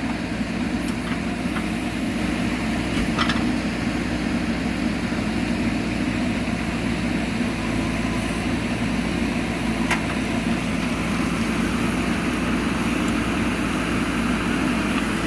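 Heavy-machinery diesel engine running steadily, with a few light clicks over it.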